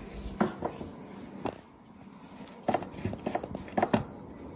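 Large kitchen knife cutting scores into a raw goat leg, the blade knocking against the tray beneath in a series of short, irregular knocks that come more often in the second half.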